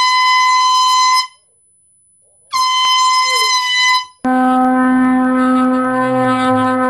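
Loud blasts of a handheld canned air horn: two high-pitched steady blasts of a second or two each, then from about four seconds in a lower-pitched continuous blast.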